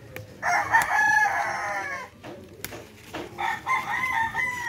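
Rooster crowing twice: a first loud crow about half a second in that trails off downward, and a second crow after about three seconds.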